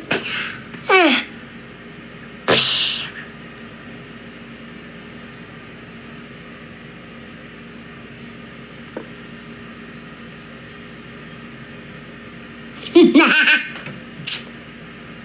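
A young boy laughing in short bursts in the first second, a short breathy burst about two and a half seconds in, then a long stretch of only a steady room hum, and laughter again near the end.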